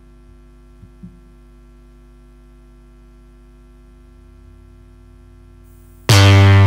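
Steady electrical hum over the sound system. Near the end a loud synthesized electric bass note starts abruptly: a numerical simulation of a bass string vibrating in contact with the frets and fretboard.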